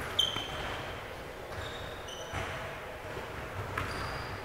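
Basketball game on an indoor court: the ball bouncing and short high squeaks of sneakers on the floor, with a sharp knock about a quarter second in that is the loudest sound.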